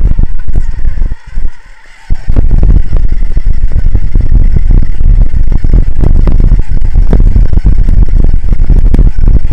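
Loud, overloaded rumbling and irregular clattering on a Hawkeye Firefly camera's built-in microphone, like wind buffeting and vibration while the camera is moving. It cuts out briefly twice in the first two seconds, then runs on without a break.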